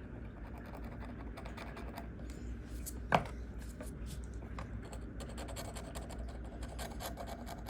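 Light scratching and small clicks of a tool working over the GoPro's screen frame as leftover glue is cleaned off, with one sharper tap about three seconds in, over a steady low hum.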